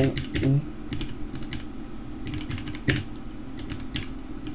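Typing on a computer keyboard: irregular key clicks, a few a second, over a steady low hum.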